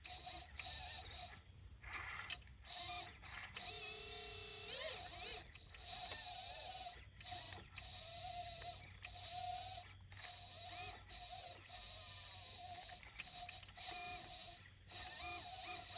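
Hydraulic pump of a 1/14-scale RC excavator whining in a high steady tone. It cuts out and starts again about once a second, with the pitch shifting now and then as the load changes.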